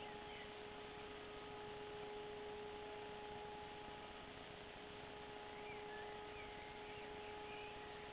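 Electric civil-defence sirens, taken for E57 motor sirens, sounding a steady held tone at a distance. A few bird chirps come through near the end.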